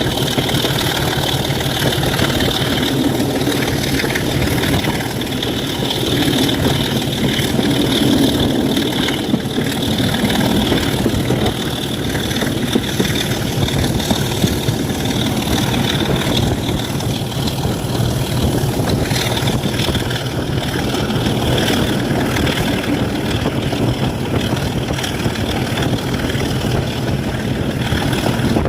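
Class 27 diesel locomotive's engine running steadily at idle, an even low beat.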